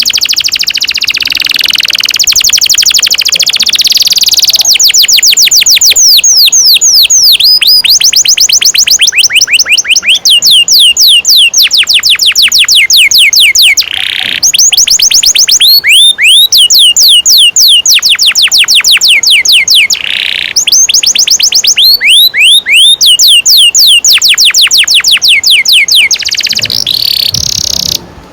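Domestic canary singing long rolling trills (ngerol), fast runs of repeated sweeping notes in phrases of several seconds with short breaks between them.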